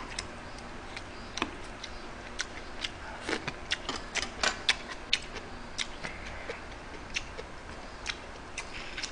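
Metal chopsticks and a spoon clicking and tapping against plastic side-dish containers and bowls while eating: irregular sharp clicks, sometimes several a second, some louder than others.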